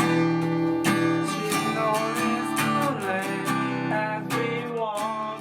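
Background music led by a strummed acoustic guitar, with a melody line moving above it.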